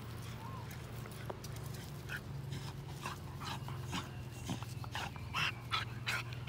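Young dog panting with its mouth open: short breathy puffs, about two a second, starting about two seconds in, over a steady low hum.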